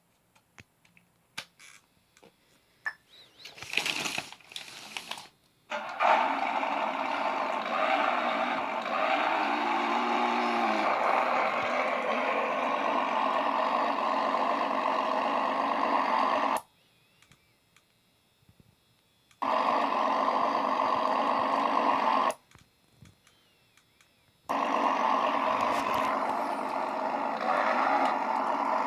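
Simulated engine sound from a TBS Micro (DasMikro) RC sound unit through its small speaker, starting after a few seconds of clicks and handling noises. It runs steadily, then is switched off abruptly twice and comes back each time.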